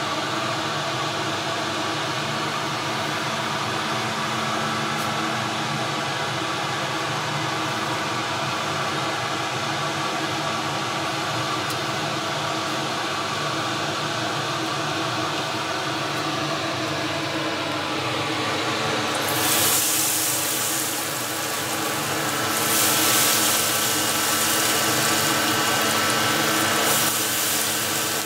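A steady machine hum with several fixed tones. About two-thirds of the way in, a loud hissing sizzle starts as battered seafood goes into hot oil to fry as tempura. The sizzle swells again a few seconds later and stays strong.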